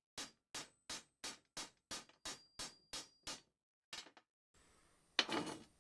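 A ball-peen hammer tapping a steel socket used as a drift on an alternator decoupler pulley, about ten quick, even taps at roughly three a second and one more a little later, driving the worn bearing out of the pulley.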